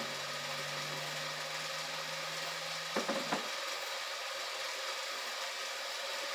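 Electric kettle popcorn machine running as it warms up: a steady hum and hiss. About three seconds in there are a few short knocks, and the low hum stops.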